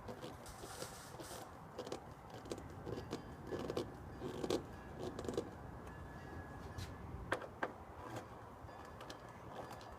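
Scattered clicks, taps and light rattles of parts and tools being handled while fitting a third brake light, with two sharper clicks a little past the middle.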